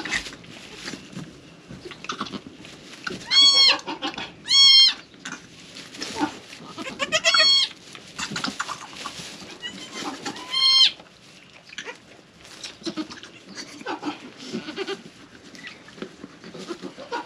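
Goat bleating four times, loud, high-pitched calls about three and a half, four and a half, seven and ten and a half seconds in, with soft rustling in straw between them.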